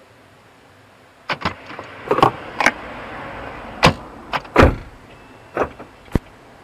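Toyota Prius car door being opened and shut, heard from inside the cabin: a series of knocks and clicks. The loudest is a deep thud of the door closing about four and a half seconds in, and a last sharp click comes near the end.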